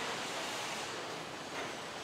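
Steady, even hiss of factory hall ambience, with no distinct knocks or machine rhythms standing out.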